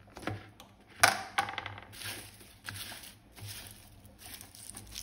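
Hands rummaging through a plastic basket of shallots: papery onion skins rustling and bulbs knocking against the plastic, with a sharp click about a second in.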